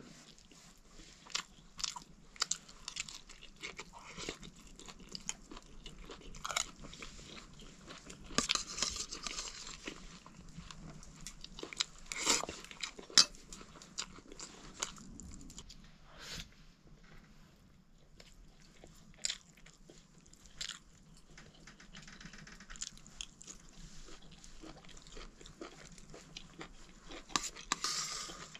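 Close-up eating sounds: chewing and crunching with irregular sharp clicks, a few louder bursts among them.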